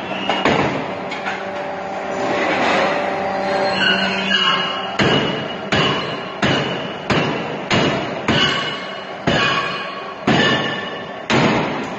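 Hot forging machine running steadily, then its dies striking red-hot steel stock in a regular run of sharp metallic blows, each with a brief ring. The blows come about one every two-thirds of a second, then slow to about one a second near the end.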